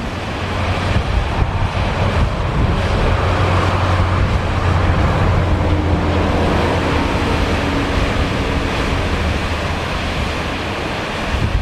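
Waterfall at Devil's Washbowl in Malad Gorge, rushing steadily into its rocky pool, mixed with wind buffeting the microphone and the low rumble of interstate traffic close by.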